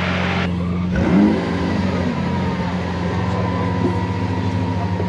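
Lamborghini Sián's V12 idling, with one short throttle blip about a second in: the revs rise and drop straight back to a steady, slightly pulsing idle.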